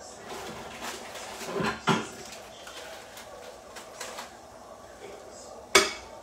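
Kitchen clatter: a few soft knocks and scrapes about a second and a half in, then one sharp, loud clack near the end, as of pots, lids or a cupboard being handled.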